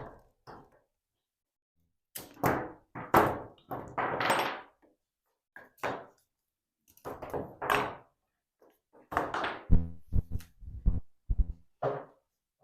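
Ratchet straps being released and pulled off a glued wooden desktop: several rasping slides of strap webbing and clacks of the metal ratchets, with heavier knocks and thuds against the wood in the later part.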